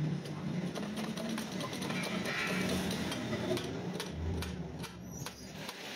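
Background music with sustained low notes, over a run of small sharp metallic clicks from a spoke wrench turning the spoke nipples of a motorcycle spoke wheel as it is trued.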